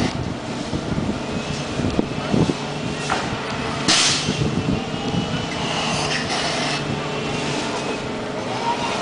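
Swinging pirate-ship ride in motion: its drive machinery hums steadily, broken by short loud hissing rushes every few seconds as the boat swings.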